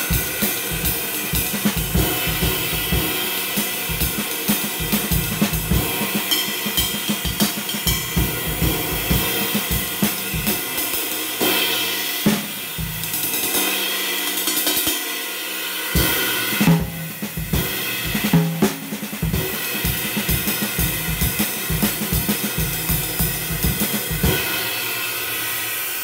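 Drum kit played with sticks: a steady ride-cymbal pattern with its ringing wash, over a run of drum strokes underneath.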